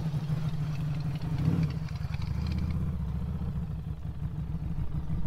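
Harley-Davidson Street 500's liquid-cooled V-twin running steadily at low revs as the motorcycle rolls slowly, with a brief swell about one and a half seconds in.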